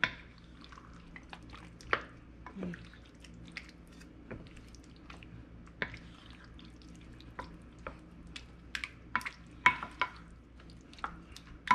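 A wooden spoon stirring a thick, creamy sauce in a ceramic baking dish: irregular short, wet clicks and squishes as the spoon works through the sauce and knocks against the dish.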